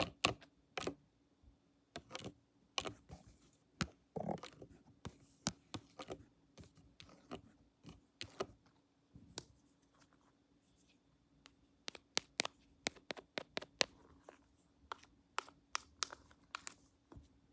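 Close-miked ASMR handling sounds: irregular sharp clicks, taps and scratches, sparser in the middle and coming thick and fast for the last few seconds, over a faint steady hum.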